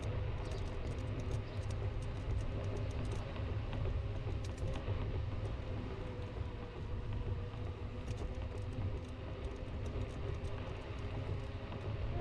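Jetson Bolt electric scooter on the move: a steady low rumble with a faint steady hum over it, and light rattling clicks that come and go, thickest in the first few seconds and again about two thirds of the way through.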